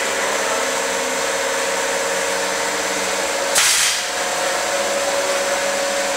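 A steady mechanical hum from a running machine, with one short, loud burst of hiss about three and a half seconds in.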